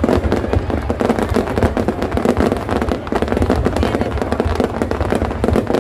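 Aerial fireworks display going off in a rapid, continuous barrage of bangs and crackles, the blasts overlapping with no pause.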